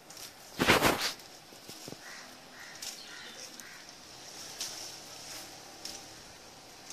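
Leaves and branches of a lemon tree rustling as ripe lemons are pulled off, with one brief loud rustle about a second in, then faint scattered snaps and ticks.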